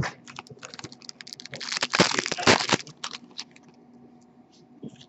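Foil wrapper of a hockey card pack crinkling as hands handle it, with scattered light taps and rustles, then a dense burst of crinkling and ripping about two seconds in as the pack is torn open.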